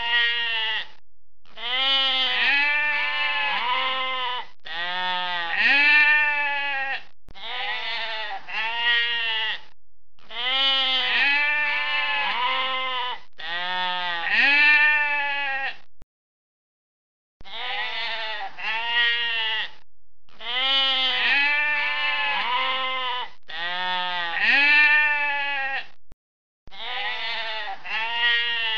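Sheep bleating over and over, one quavering bleat after another with short pauses and a brief break about halfway through.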